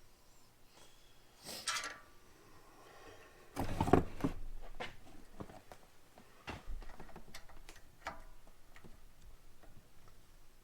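Hand tools and metal parts clinking and knocking while the pump is shifted and bolted to the pressure washer's engine: a short scrape early, the loudest clatter about four seconds in, then scattered clicks and taps.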